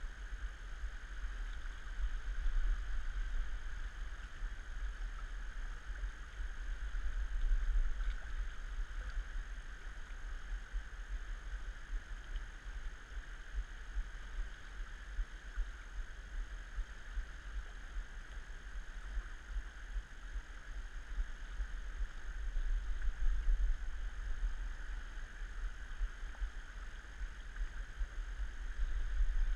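Steady rush of a fast-flowing river, with a strong low rumble underneath.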